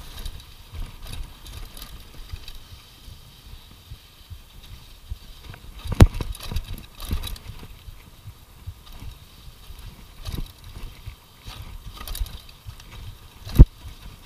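Mountain bike rattling and clattering over a rough dirt trail at speed, with a steady low rumble. Two sharp knocks, about six seconds in and near the end, are the loudest.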